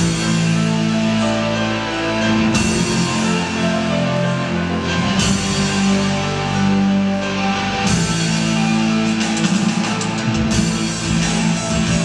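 Live rock band playing an instrumental passage on electric guitars, keyboard and drum kit over a steady bass line, the cymbals coming in about every two and a half seconds.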